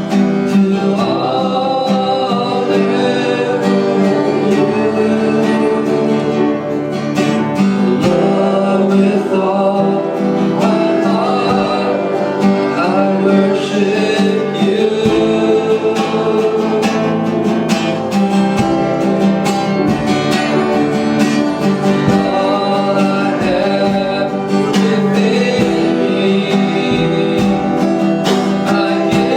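Live worship music: acoustic guitar strumming with the band, and voices singing along over it.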